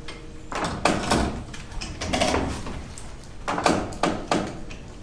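A chain being ratcheted tight to pull a split wooden rafter chord back together: clicking and rattling in three short spells, about a second, two seconds and three and a half seconds in.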